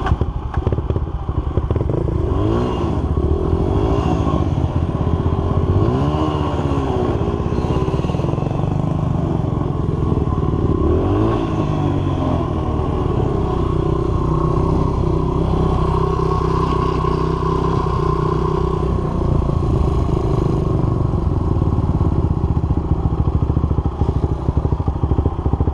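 Dirt bike engine revving up and dropping back several times in the first half, then running more steadily as it rides a dirt trail, with a quad's engine running close alongside. Heard from the rider's helmet camera.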